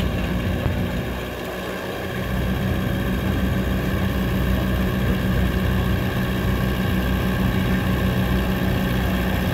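Antique farm tractor engine working hard under load while pulling a weight-transfer sled, a steady heavy engine note. It dips briefly about a second in and comes back louder about two seconds in, then holds steady.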